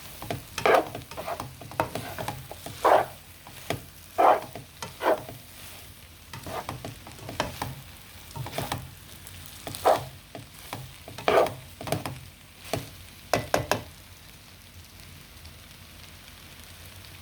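Glass noodles being stir-fried in a pan: a utensil knocks and scrapes against the pan at irregular intervals over a steady sizzle. The knocking stops about 14 seconds in, and only the sizzle goes on.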